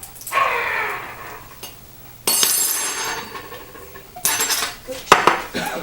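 Metal clashing, like blades striking: two ringing clangs about two and four seconds in, each dying away slowly, then a few sharp clicks near the end. A falling cry is heard at the start.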